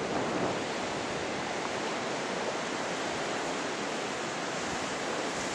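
Steady wash of ocean surf breaking on the shore, an even rushing noise with no distinct events.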